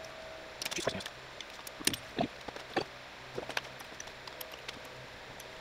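Light metallic clicks and clinks of snap-ring pliers and a screwdriver working a snap ring on an E153 transaxle shaft: a quick, irregular run of sharp ticks over the first few seconds, then stopping.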